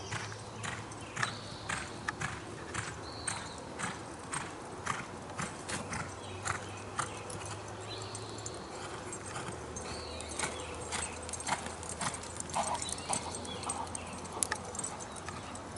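Hoofbeats of a reining horse loping on arena dirt: a steady, regular run of hoof strikes, several a second.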